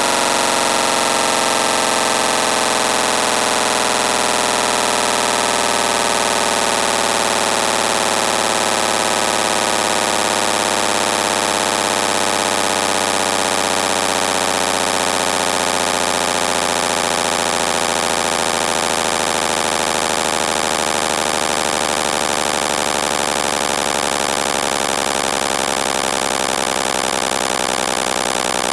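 Synthesized imitation of a Toyota 2JZ engine, played by a looping pitched sequence in a phone sound-sequencing app: a dense, steady buzzing drone whose pitch slowly falls.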